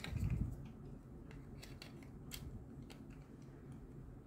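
Hard plastic parts of a battery-powered toy train locomotive being handled and snapped together: a dull bump at the start, then a series of sharp, separate plastic clicks.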